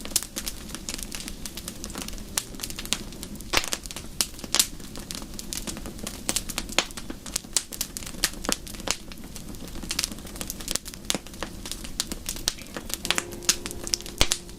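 Wood fire in a fireplace crackling, with frequent irregular snaps and pops over a steady low hiss of flame.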